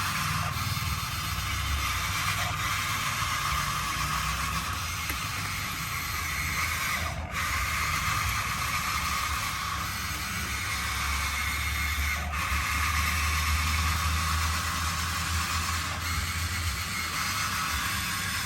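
Electric motors and gearboxes of 1:16-scale RC construction machines running, a steady mechanical whirring with a low hum underneath.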